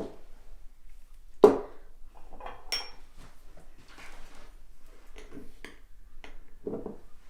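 Kitchen clatter of dishes, pots and utensils being handled and set down: a row of knocks and clicks, one louder knock about a second and a half in, and a short metallic ring shortly after.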